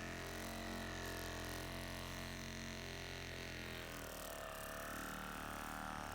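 Handheld percussive massage gun running against the body with a steady droning buzz; its tone shifts and wavers about four seconds in.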